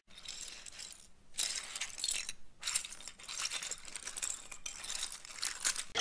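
Plastic building bricks clattering, a quick run of small hard clicks and clinks with two short breaks.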